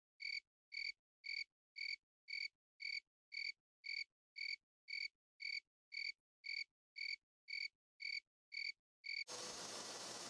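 An added sound effect: a high-pitched chirp repeated evenly about twice a second, with dead silence between chirps. Near the end it gives way to a steady hiss of room noise.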